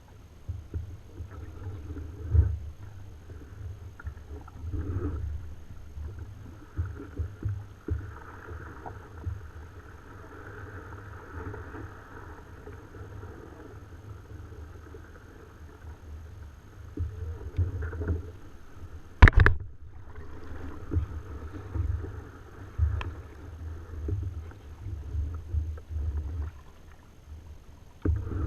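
Sit-on-top plastic kayak on the water, an Ocean Kayak Trident 13: irregular low knocks and rumble against the hull, with one sharp knock about two-thirds of the way through.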